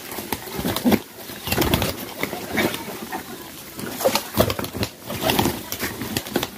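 Domestic pigeons crowding to eat paddy grain from a hand: quick pecking and rustling of the grain, wing flaps, and low cooing.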